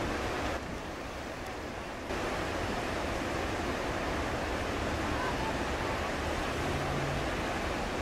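Whitewater river rapids rushing in a steady, noisy wash of churning water. The sound turns softer and duller from about half a second in until two seconds in, then comes back abruptly.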